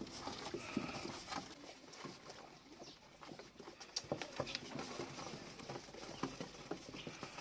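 Golden retriever puppies nursing from their mother: faint, scattered little clicks, smacks and squeaks.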